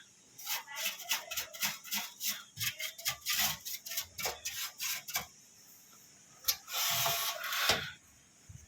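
Small brush scrubbing a computer part, in quick short strokes about three to four a second, then one longer scrub near the end.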